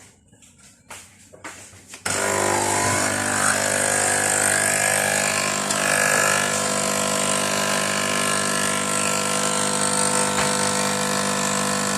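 Nespresso capsule machine's pump buzzing loudly and steadily as it brews a coffee, starting suddenly about two seconds in, after a few faint clicks.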